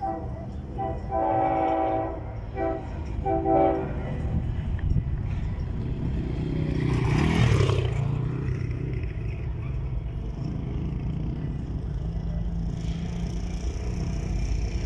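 Freight diesel locomotive horn sounding a chord in several blasts during the first four seconds, one longer and the rest short, over the steady low rumble of the approaching locomotives. A brief rushing noise swells and fades about halfway through.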